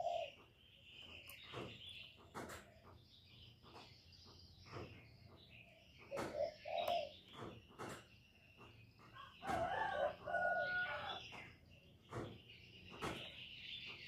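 Spotted dove cooing in several short low phrases, the longest about two-thirds of the way through. Small birds chirp steadily higher up, and sharp clicks are scattered throughout.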